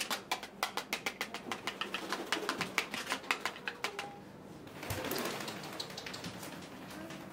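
A camera shutter firing in quick succession, about five clicks a second for roughly four seconds, followed about five seconds in by a brief rustling rush of noise.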